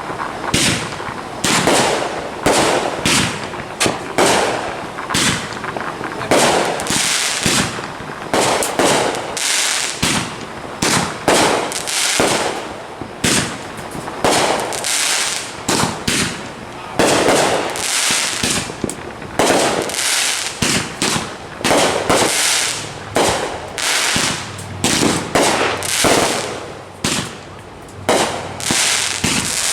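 Consumer fireworks going off in a dense, irregular string of sharp bangs and crackling bursts, one after another with hardly a gap.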